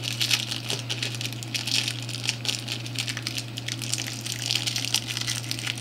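Plastic packaging crinkling and crackling in the hands as a small vape tank is unwrapped, in quick irregular bursts, over a steady low hum.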